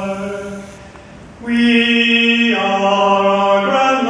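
A man singing unaccompanied into a microphone: a long held note fades away in the church's reverberation, then after a short pause he begins a new held note that steps to other pitches twice.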